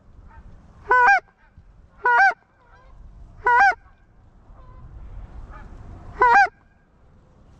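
Four loud, separate goose honks, about a second or more apart, each a short note that rises and falls.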